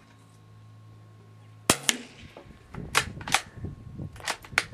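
A single shot from a .22 bolt-action rifle firing an Aguila Super Colibri round, a primer-only load with no powder: a short, sharp crack about a second and a half in, quiet enough to sound like it has a silencer on it. Several lighter clicks and clacks follow over the next few seconds as the bolt is worked.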